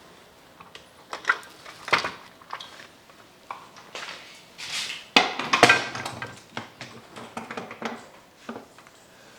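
Metal clanks and knocks of a hydraulic floor jack being handled and lifted onto a workbench, the loudest a heavy clunk about five seconds in followed by a short clatter.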